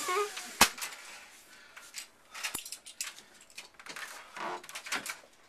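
A single sharp knock about half a second in, then a faint click and scattered short clunks and rustling from a person shifting about on a home treadmill.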